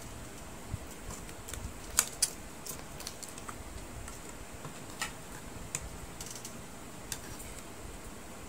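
Cooked crab shells cracking and clicking as the crabs are broken apart by hand: irregular sharp clicks, the two loudest close together about two seconds in, over a steady background hiss.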